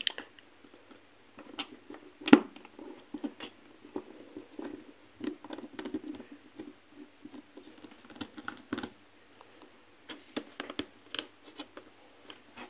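Precision screwdriver unscrewing small screws from a phone's plastic back frame: scattered light clicks and taps of the bit and tool on the case, with a soft rubbing sound from about four to nine seconds in.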